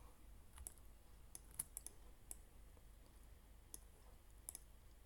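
Faint computer mouse clicks, scattered and irregular, some in quick pairs, over quiet room tone.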